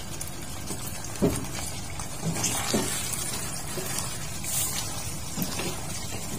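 Chicken rendang being stirred with a spatula in a frying pan of simmering sauce: wet stirring with a few soft knocks of the spatula against the pan.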